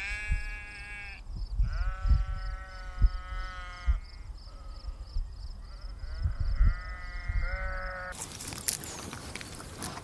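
Sheep bleating: three long, wavering bleats, one after another. After about eight seconds the bleating stops and a hissing, crackly noise takes over.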